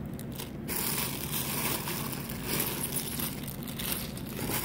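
Crinkly plastic packaging rustling and crackling close to the microphone, starting about a second in.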